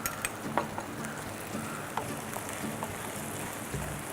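Vegetables and sauces sizzling in hot oil in a pan, a steady frying hiss with scattered small pops and crackles.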